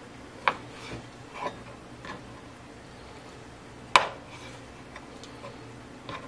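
A kitchen knife cutting raw chicken breast, the blade knocking down onto a cutting board about six times, with the loudest knock about four seconds in.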